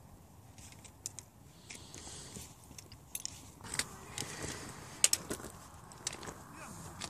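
Scattered light clicks and crackles over a faint rustle. They become busier and louder a little past halfway, with one sharp click about five seconds in.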